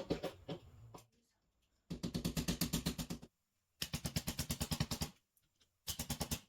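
Power driver backing screws out of blind brackets in three bursts of rapid rattling clicks, about fourteen a second, after a short knock and clatter at the start.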